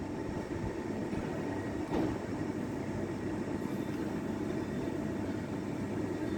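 Steady low rumble of an electric train at the platform, with a single short knock about two seconds in.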